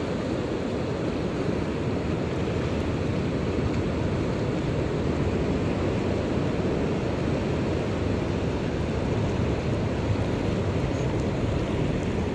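Steady low rumble of wind on the microphone over sea surf washing across reef rocks.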